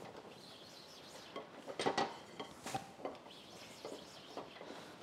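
Blue air-line tubing being pulled through a roller tubing straightener clamped to a metal table: scattered clicks and light knocks, with a louder clatter of a few knocks about two seconds in.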